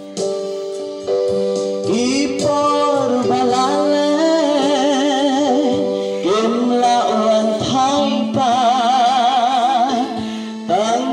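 A Khasi hymn (jingrwai): a singing voice with strong vibrato over sustained instrumental chords.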